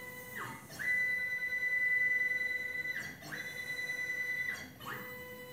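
CNC plasma table gantry stepper motors whining at a steady high pitch while jogging the gantry. Three times the whine glides down and sweeps back up as the motors slow and speed up again between moves. It is loudest during the long move in the first half.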